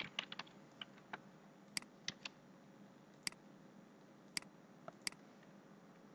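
Faint clicks of a computer keyboard and mouse: a quick run of keystrokes at the start, then single and double mouse clicks every second or so.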